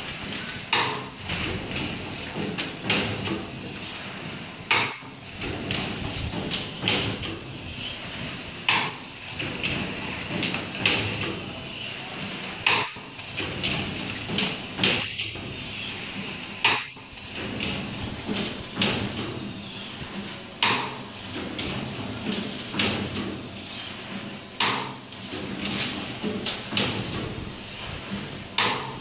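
DPP-140 blister packing machine running, its press stations clacking in a steady cycle about every two seconds, with lighter clicks between, over a constant mechanical running noise.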